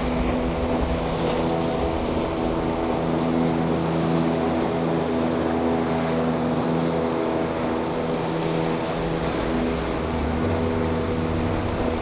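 Motorboat engine droning steadily as it crosses the water.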